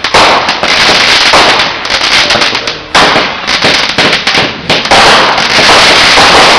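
Fireworks going off in a rapid, continuous barrage of loud crackling pops, with a brief lull about three seconds in and a denser volley in the last second and a half.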